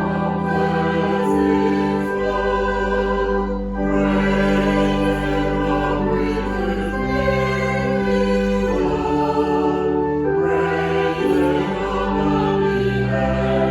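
Slow choral music: a choir singing long-held chords with instrumental accompaniment, the chords changing every few seconds.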